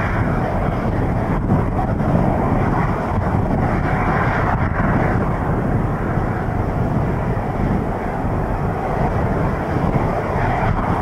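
Boeing 737-300's CFM56 jet engines running steadily at low taxi power as the airliner rolls slowly along the ground, with gusty wind rumbling on the microphone.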